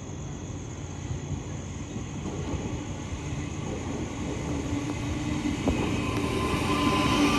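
Electric passenger train approaching, its rumble growing steadily louder. A steady motor whine comes in about six seconds in and strengthens.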